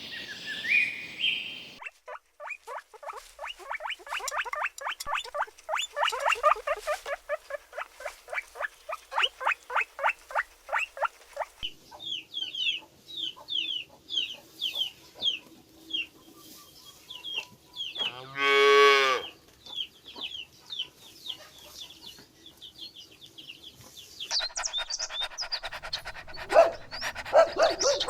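A run of farm animal calls cut together in short clips: a fast series of short repeated calls, then steady high chirping, with one loud cow moo lasting about a second two-thirds of the way through.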